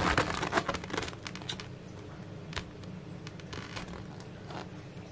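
Folded paper instruction sheet rustling and crinkling as it is handled and unfolded. The crackles are busiest in the first second, then thin out to a few scattered crinkles.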